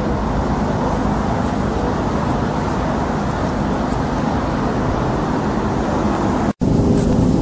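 Steady street traffic noise, a continuous low rumble that cuts out for an instant about six and a half seconds in and then comes back a little louder.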